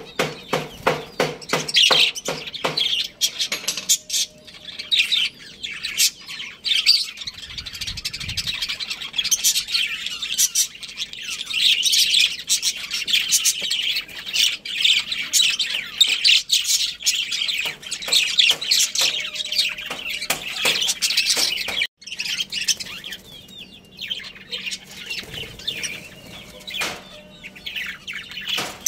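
Budgerigars chirping and chattering, many short overlapping high chirps in a continuous stream, with a brief break about two-thirds of the way through.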